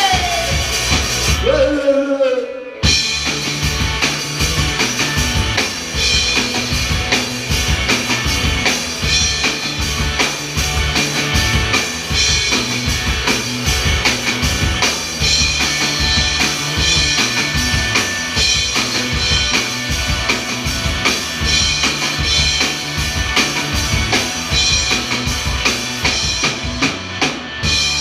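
Live rock band playing amplified electric guitars over a drum kit with a steady, driving beat. The band breaks off briefly about two seconds in, then comes back in and plays on instrumentally.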